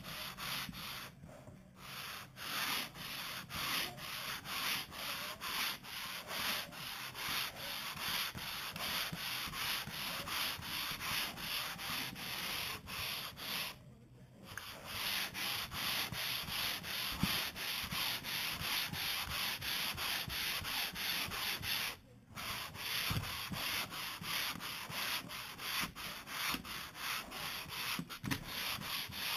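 Hand sanding of a faired boat hull with a Flexicat long board: sandpaper rasping over the fairing compound in quick, repeated push-pull strokes, with a few short pauses. The strokes are worked in big diagonal X's to leave a cross-hatch pattern.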